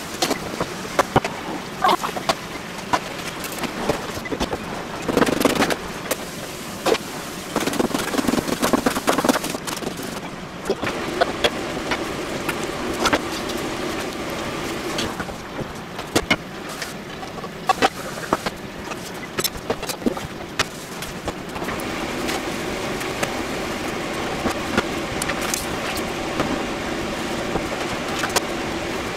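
Cooking at a gas stove: metal utensils knocking and scraping against pans and pots, many separate clatters, over a steady hiss of burners and a boiling pot that grows louder about three-quarters of the way through.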